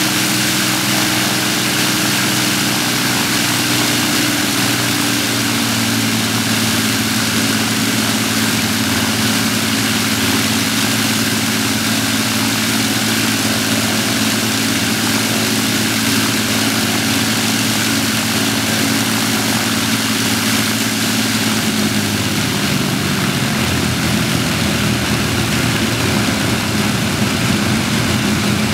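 The four Rolls-Royce Merlin V12 engines of an Avro Lancaster bomber running together during a ground engine run, a loud, steady sound of engines and propellers. The engine note shifts slightly about six seconds in and again past the twenty-second mark.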